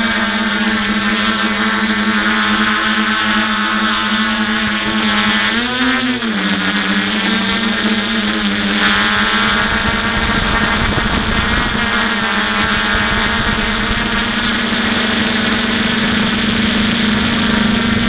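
Aphid X450 quadcopter's electric motors and propellers heard from its onboard camera: a steady whine that briefly rises and falls in pitch about six seconds in, with a low rush of wind on the microphone growing from about nine seconds.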